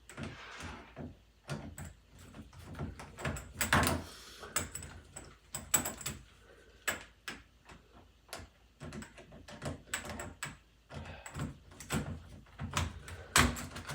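Irregular metal clicks and knocks from a doorknob's lock hardware being unscrewed and worked loose in the door, with a few louder knocks.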